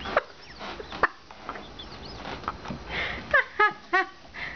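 Sphynx cat giving a quick run of short meows about three seconds in, with a couple of soft handling knocks earlier.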